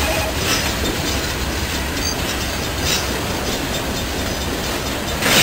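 Freight train cars rolling past close by, boxcars and an autorack: a steady rumble and rattle with the wheels clacking over the rail joints. A few sharper clacks stand out, the loudest near the end.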